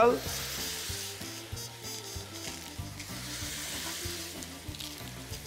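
Garlic, onion and peeled pepper sizzling steadily as they sauté in olive oil in a casserole.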